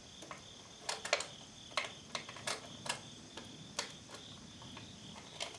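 12-gauge shotgun shells being pressed one by one into a detachable box magazine: about seven sharp plastic-and-metal clicks at uneven intervals. Crickets or other insects keep up a steady high buzz underneath.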